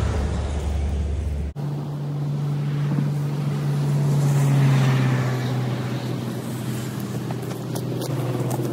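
Kubota tractor engine running steadily, with an abrupt change about a second and a half in and a brief swell in level around the middle.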